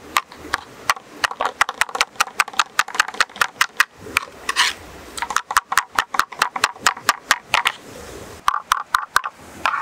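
Heavy cleaver chopping soft food on a wooden cutting board: a rapid run of knocks, about six strokes a second, with brief pauses about four and eight seconds in.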